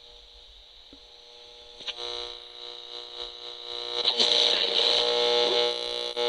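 Circuit-bent radio's speaker putting out electronic glitch noise: faint hiss at first, then, after a click about two seconds in, a loud buzzy drone of many steady tones over a high hiss, joined about four seconds in by warbling sweeps up and down in pitch.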